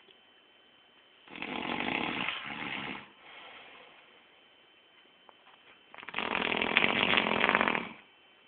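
A man snoring: two long, loud, buzzy snores, the first about a second in and the second near six seconds, with a softer breath just after the first.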